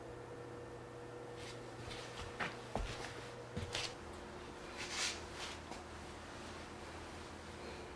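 Quiet room tone with a steady low hum. A few light knocks and clicks come about two and a half to four seconds in, then a short rustle about five seconds in.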